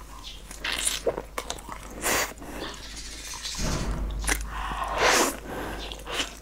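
Close-miked chewing and biting of a dark, sauce-coated food: wet, irregular mouth noises with a few sharp clicks.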